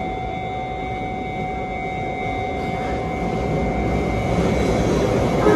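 Subway train approaching through the tunnel into an underground station: a rumble that grows steadily louder through the second half, over a steady electrical hum.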